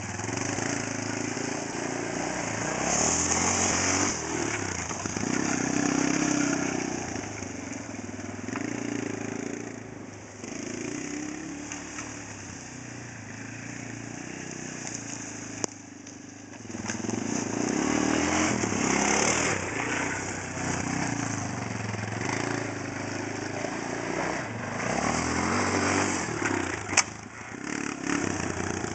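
Yamaha Raptor 250 ATV's single-cylinder four-stroke engine revving up and backing off again and again, quieter for a while midway, with a sharp crack near the end.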